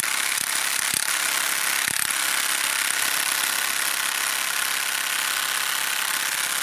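Parkside Performance cordless impact wrench on an 8 Ah battery starts abruptly and hammers steadily on a rusted wheel-hub nut, struggling to break it loose.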